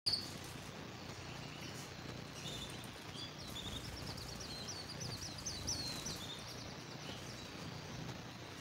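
Domestic canary singing: a short sharp high note at the start, then, from about two and a half seconds in, rapid trills of quick repeated downward-sweeping high notes that stop a little before the end, over a steady faint hiss.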